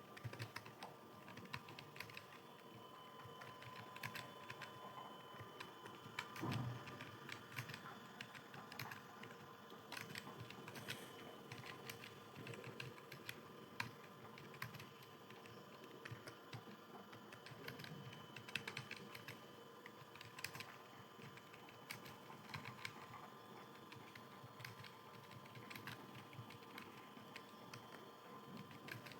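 Typing on a computer keyboard: faint, quick, irregular keystrokes, with one louder thump about six and a half seconds in.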